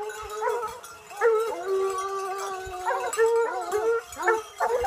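An animal howling in a run of wavering, whining notes, with one long held note in the middle and shorter rising and falling notes after it.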